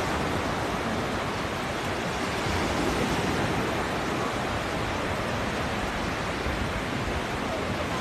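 Small surf breaking and washing up a sandy beach: a steady rushing noise that barely rises or falls, with wind buffeting the microphone underneath.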